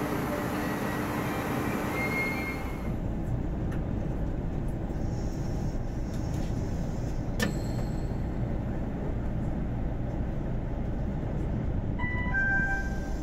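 JR EF65 electric locomotive passing close on the rails with loud rail noise, which drops away suddenly about three seconds in. A steady low train rumble follows, with one sharp click in the middle and a few short stepped tones near the end.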